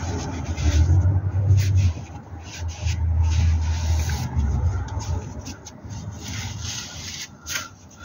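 Cloth rag rubbing and scuffing as it wipes down the clutch slave cylinder and surrounding underbody metal, close to the microphone, louder in the first half.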